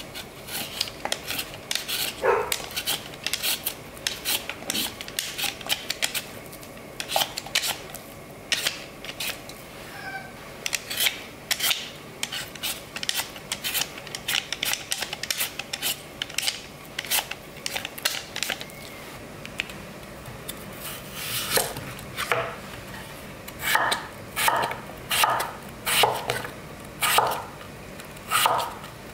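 A Y-shaped vegetable peeler scraping the skin off taro corms in short quick strokes, with clicks and knocks against a stainless steel bowl. Later a chef's knife slices through peeled taro onto a wooden cutting board in steady strokes about twice a second.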